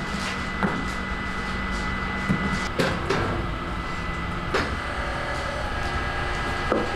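A metal ladle knocks and scrapes several times against the steel batter trough of a baumkuchen oven, over the steady hum of the oven's machinery.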